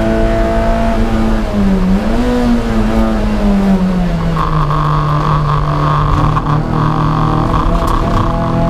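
Toyota MR2 race car's engine heard from inside the stripped-out cabin at racing speed. The engine note dips briefly about two seconds in, then the revs fall steadily and hold lower. About halfway through, a steady higher-pitched hiss joins the engine note.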